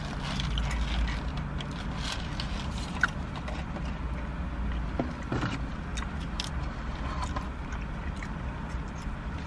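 Steady low hum of a car running, heard from inside its cabin, with faint chewing and small crinkles of a paper packet being handled.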